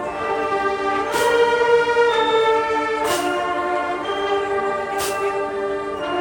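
Marching band playing held, sustained chords that shift every second or two, with a sharp crash about every two seconds.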